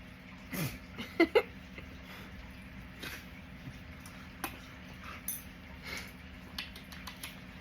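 Redbone hound puppy vocalising: a short falling whine, then two sharp yips about a second in, followed by scattered faint clicks.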